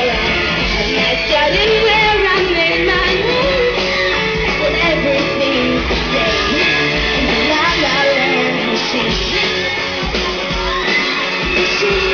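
A woman singing lead over a live pop-rock band through the concert sound system, heard from out in the audience.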